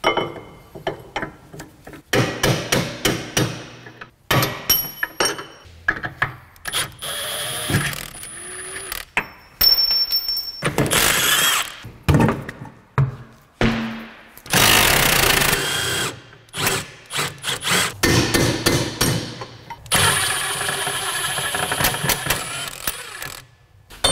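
Hand and power tools on a car's rear suspension: runs of rapid ratchet clicking and metal knocks, broken by several stretches of a power tool running for a second or two.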